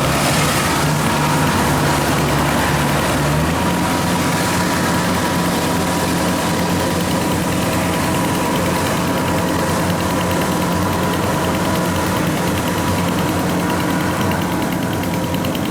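Diesel engine of tracked rice-harvesting machinery running steadily in a waterlogged paddy. Its note steps up to a slightly higher, steady pitch about three and a half seconds in.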